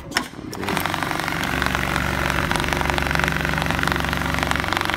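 Automatic industrial pattern sewing machine stitching at speed, its needle making a rapid, even clatter over a steady motor hum. A sharp click comes just before it picks up speed, under a second in.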